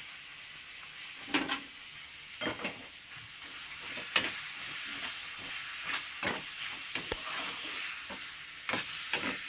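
Tomato, onion and cream vegetable curry sizzling in a pan while being stirred, the spoon knocking and scraping against the pan several times. The curry is being cooked down until it is dry.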